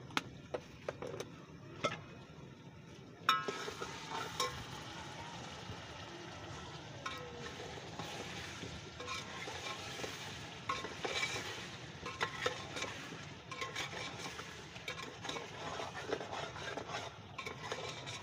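A long metal ladle stirs and scrapes chicken, potatoes and masala frying in a large aluminium pot, clinking often against the pot's sides. There are a few light taps first; then, about three seconds in, a steady sizzle starts abruptly and carries on under the stirring. This is the masala being fried down for chicken pulao.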